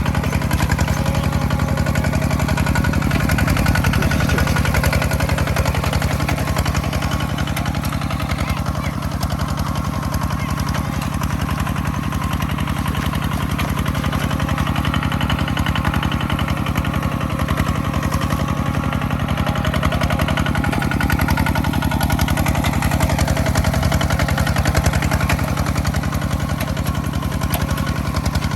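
Farm machine engine running steadily at a constant speed during rice harvesting, with no change in pitch or level.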